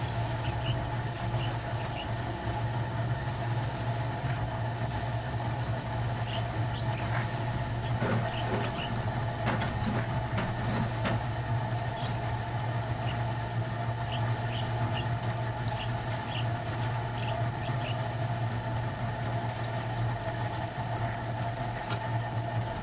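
A machine running steadily with a constant low hum, with faint, short, high chirps scattered through it.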